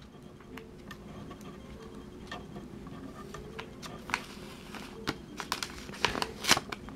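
Paper envelope being pried open by hand: soft rustling and crinkling of paper, with a run of sharper crackles in the second half as the flap comes apart.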